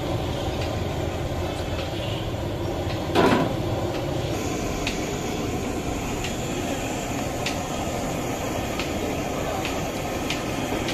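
Hot oil sizzling in a large karahi as battered potato slices for aloo pakora are dropped in one by one, with a sharp tick every second or so, over steady street-market noise. A loud clatter about three seconds in.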